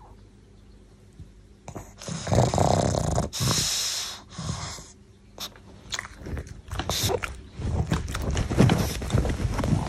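A pug snorting loudly through its flat nose: two long snorts about two seconds in, then quicker snuffles and scuffling as it wakes toward a treat held at its nose and scrambles up out of a blanket.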